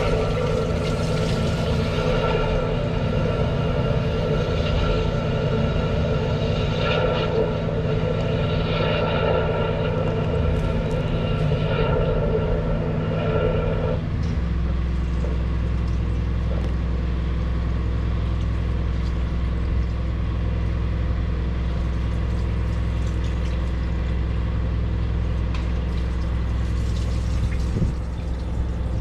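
An engine running steadily with a rushing sound over it. About halfway through the rushing stops suddenly and the engine settles into a lower, even hum.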